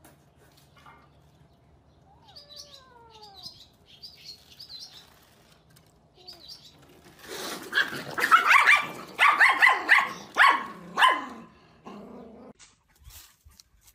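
A dog barking in a quick series of loud barks for about five seconds, starting about seven seconds in. Before that, faint bird chirps.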